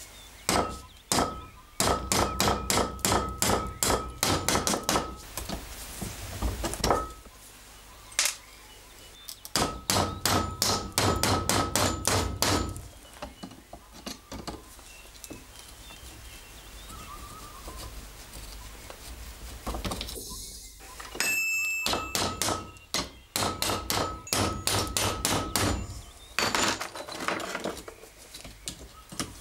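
Quick, light hammer taps on metal with a short ring after each, at about four a second in three runs, driving out the rivet pins of an old folding knife's handle. A brief high ringing tone about two-thirds through.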